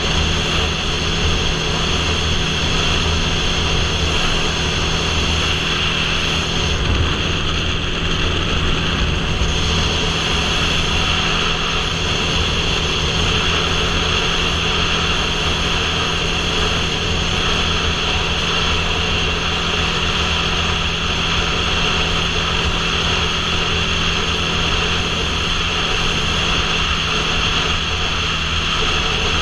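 Motorcycle engine running steadily at highway cruising speed, with a constant rush of wind over the helmet-mounted microphone.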